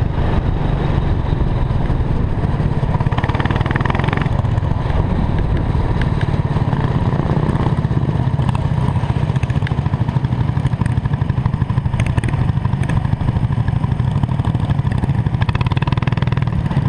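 Go-kart engine running steadily while the kart is driven around the track, heard from a camera mounted on the kart.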